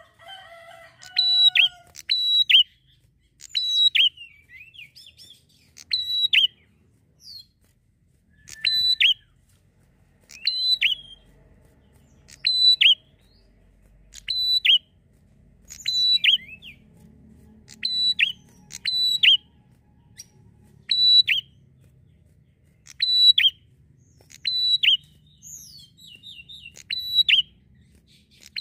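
Prinia (prenjak) calling over and over: a short, sharp, high chirp repeated every one and a half to two seconds.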